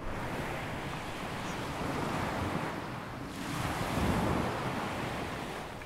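Sea waves washing in, swelling and easing off twice.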